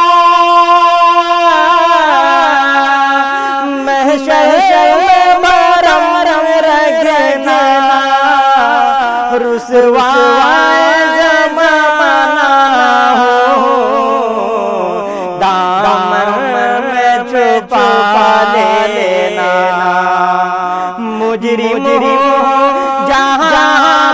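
A man singing an Urdu naat in long, ornamented held notes that waver and slide in pitch, over a steady low held tone.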